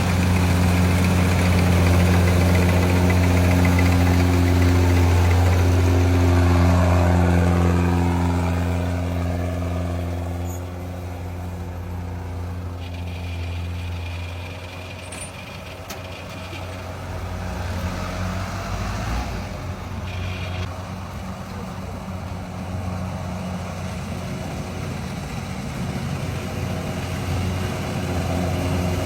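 Kubota DC-105X combine harvester's diesel engine running at a steady pitch. It is loud at first, fades over several seconds as the machine moves off, then slowly grows louder again near the end.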